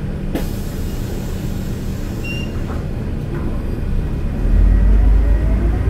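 Mercedes-Benz O500LE CNG bus engine running with a low rumble. About four and a half seconds in, the engine note grows louder and a whine begins rising in pitch as the bus pulls away and accelerates.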